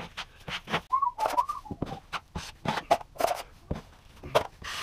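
Wide drywall knife scraping topping compound across a drywall patch in short, quick strokes, a few a second.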